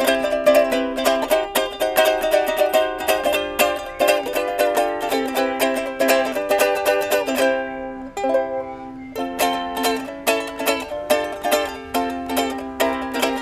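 Akahai IZ21 BK soprano ukulele, all mahogany with nylon strings, strummed in chords in a steady rhythm. About eight seconds in the strumming briefly thins out and a chord rings on before the rhythm picks up again.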